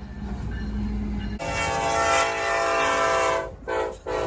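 EMD diesel locomotive's multi-chime air horn: after a low rumble, one long blast of about two seconds, then a short blast near the end.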